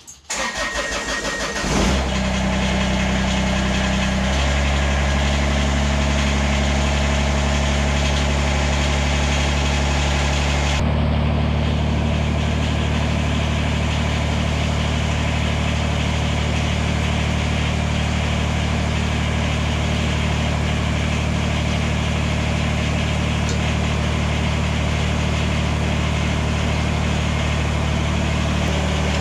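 Kubota BX23S's three-cylinder diesel engine cranking and catching about two seconds in, then running steadily at low speed. Its note shifts twice, at about four and eleven seconds in.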